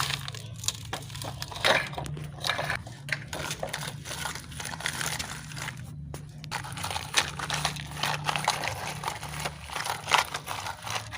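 Sand and small stones scraping, crunching and rattling in quick irregular clicks as they are pushed and spread with toy construction vehicles to make a road.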